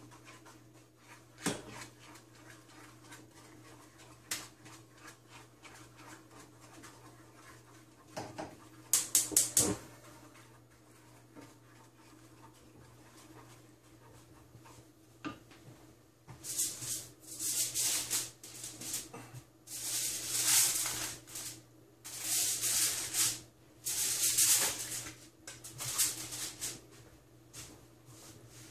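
Wooden spatula scraping and stirring a thick butter-and-sugar candy mixture in a nonstick frying pan: a few scattered scrapes and taps at first, then from about halfway a steady run of louder scraping strokes, one or two a second, as the mixture is kept moving so the sugar melts.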